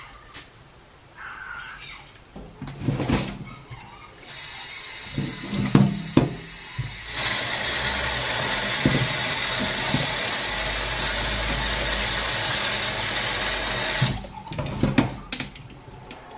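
Kitchen tap running into a plastic tub of thawed pork pieces to rinse the meat. The flow starts about four seconds in, grows fuller a few seconds later and is shut off near the end. Before it there is rustling of a plastic bag and a few knocks of handling.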